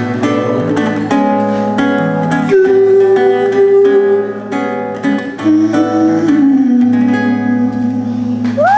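Acoustic guitar strummed and picked through the closing bars of a song, with long held notes over it, the second one stepping down in pitch. Whoops and cheering break in right at the end.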